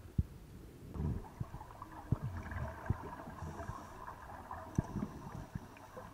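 Underwater sound of scuba divers' exhaust bubbles gurgling and crackling, starting about a second in, with a muffled rumble and occasional dull knocks.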